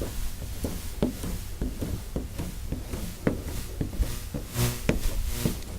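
Squeegee working paint protection film onto a car panel: scattered rubbing, taps and knocks, with a short squeak about four and a half seconds in.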